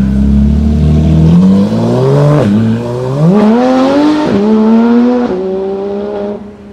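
Supercar engine accelerating hard, revs climbing and briefly dipping at each upshift, twice, then settling into a steady higher gear before it fades near the end as the car pulls away.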